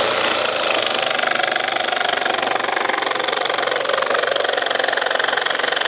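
Parkside 20V cordless jigsaw running steadily, its reciprocating blade cutting through a board of laminate flooring with a fast, even rasping buzz.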